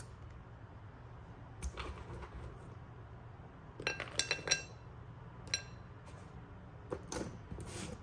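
A few peanuts dropped by hand onto a ceramic china plate: light clicks, then a quick cluster of ringing clinks about four seconds in, and a few more single clinks later.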